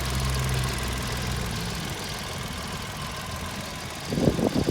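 Hyundai i10's 1.0-litre three-cylinder petrol engine idling steadily and smoothly, without shaking.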